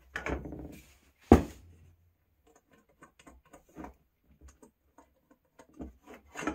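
Small parts being handled and set down: a brief rustle, a sharp clack about a second in, then scattered light clicks and taps.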